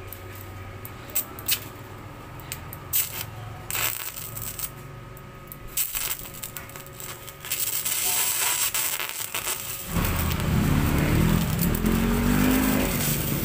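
TIG welding arc on an aluminium motorcycle crankcase, fed with an alloy filler rod. It first gives irregular crackles and pops, then turns into a steady hissing crackle about seven seconds in, which grows louder near the end as a lower hum joins it.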